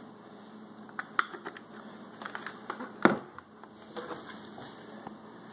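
Handling of a Humminbird fish finder head unit: scattered clicks and light knocks as its power cable connector is plugged in and the unit is set down on a wooden table, with the loudest knock about three seconds in.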